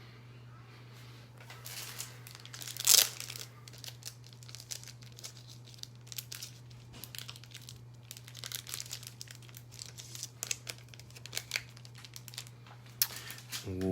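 Plastic packaging crinkling and being torn, in irregular crackles with one loud rip about three seconds in, over a steady low hum.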